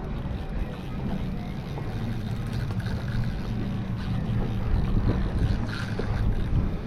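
Wind buffeting the microphone on a small fishing boat, a steady rumble with a low hum underneath.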